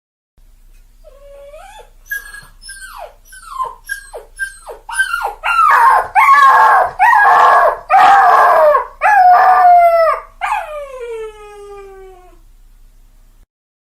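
Dog giving short yelping cries that fall in pitch, building into loud howls, then one long howl that slides down in pitch and fades out.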